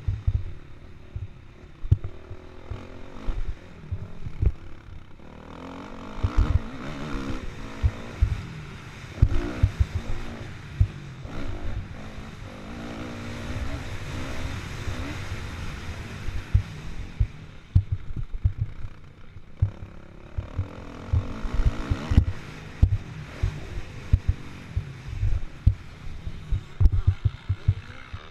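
Kawasaki KX450F four-stroke single-cylinder motocross engine revving up and down through the gears under race throttle, heard onboard. Frequent short low thumps come with it, and there is a steadier stretch of held revs about halfway through.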